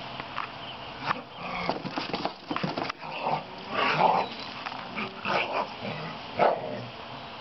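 Dogs making short vocal noises while playing: a string of brief sounds from about one second in until shortly before the end, over a steady hiss.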